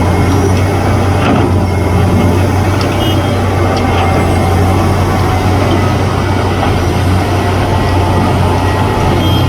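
Heavy engine of road-repair machinery running steadily with a strong low drone, and a few faint clicks on top.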